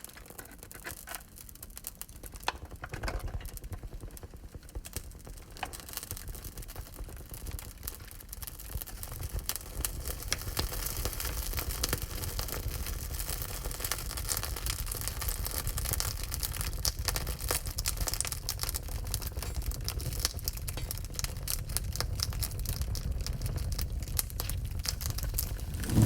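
Wood fire crackling in a wood-burning stove: scattered small pops and snaps over a soft low rumble, getting busier after the first several seconds.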